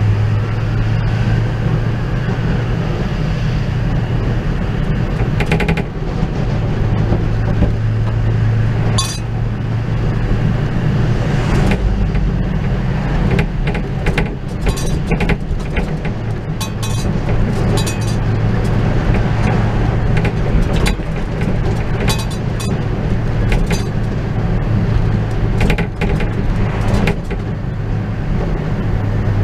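A truck hauling a Bobcat 337 mini excavator drives along at road speed: a steady low engine and road drone. Frequent sharp metallic clinks and rattles come from the load and rig as it rides over the road.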